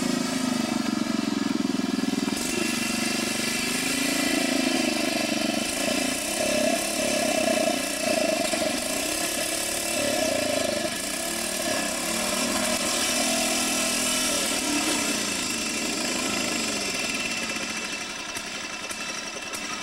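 Riding lawn mower's small engine running steadily, a constant droning note with many overtones, getting somewhat quieter near the end.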